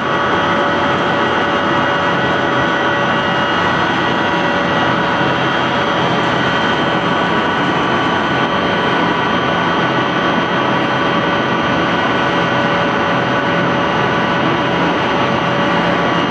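YGKJ560 sawdust pellet mill running under load, pressing sawdust into pellets: a loud, steady machine noise with several steady whining tones over it.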